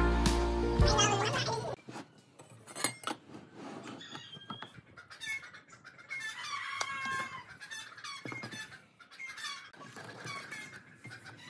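Background music ends in the first two seconds, then chickens clucking on and off, with a few scattered knocks.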